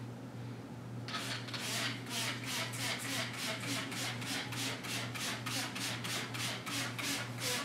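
Hand trigger spray bottle misting a window pane: quick repeated squirts, several a second, starting about a second in, over a steady low hum.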